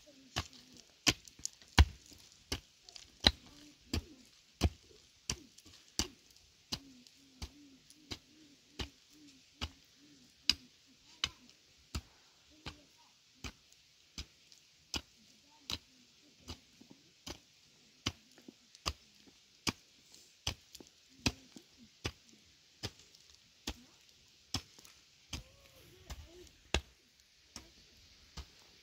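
A hand tool chopping with steady, rhythmic strokes, about three strikes every two seconds, some hitting harder than others.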